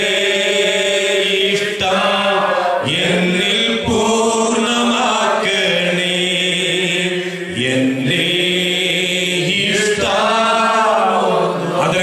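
Slow Malayalam worship song sung in long held phrases of a few seconds each, with a short break between phrases.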